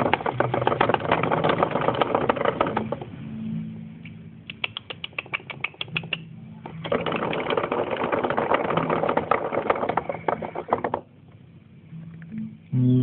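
A Campbell's dwarf hamster clicking and scratching rapidly at its playhouse, in two long runs of dense clicks with a patch of sparser single clicks between them. The clicking stops about eleven seconds in, over a low steady hum. A brief louder sound comes just before the end.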